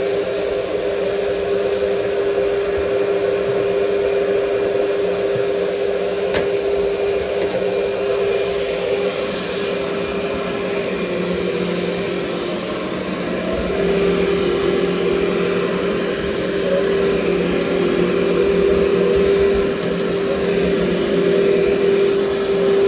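Workhorse canister vacuum cleaner running steadily while vacuuming carpet, its motor hum dipping slightly in pitch for a couple of seconds midway before settling back. A single faint click about six seconds in.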